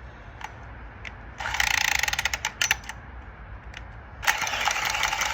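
Milwaukee M12 cordless copper pipe cutter running in two bursts, its motor-driven cutting head spinning around a copper pipe with a fast, even rattling whirr.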